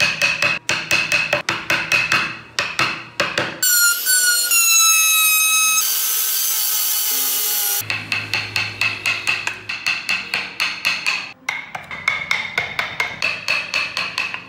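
Hand chisel and gouge paring wood in quick, short, scraping strokes, about three a second. The strokes pause briefly in the middle, where a falling whistle-like sound and then a steady hiss are heard.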